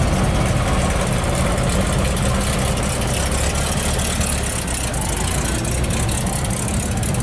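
Steady running noise of vehicle engines idling, with faint voices in the background.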